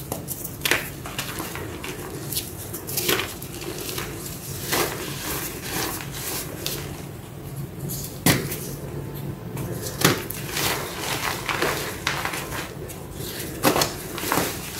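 Blocks of reformed gym chalk filled with dried black paste being crushed and crumbled in the hands: dry, crunchy crumbling, with a sharp crack every couple of seconds as a piece snaps.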